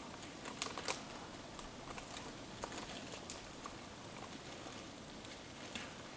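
Faint outdoor background hiss with scattered small clicks and ticks, the clearest pair about a second in.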